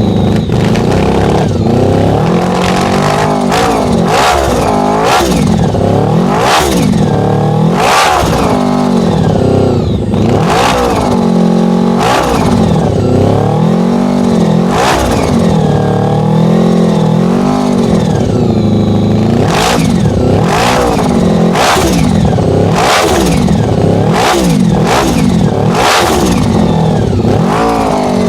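Supercharged Honda VFR750 V4 motorcycle engine revved hard again and again, its pitch climbing and dropping every second or two.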